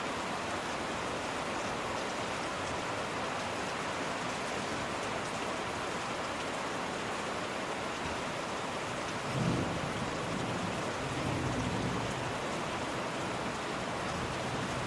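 Steady rain falling. About two-thirds of the way through, a low rumble rises sharply and dies away over a couple of seconds.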